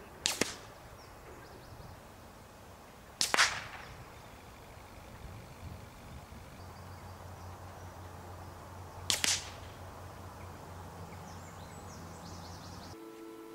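Three shots from a .22LR rifle firing Remington Yellow Jacket high-velocity rounds: sharp cracks about three seconds and then six seconds apart.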